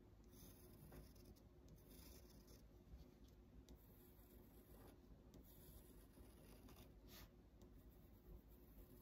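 Faint scratching of an HB graphite pencil on drawing paper, as a series of short back-and-forth hatching strokes.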